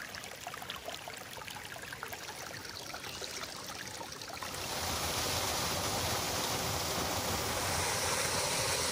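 Flowing stream water: a light trickle with small splashes, giving way about four and a half seconds in to a louder, steady rush of moving water.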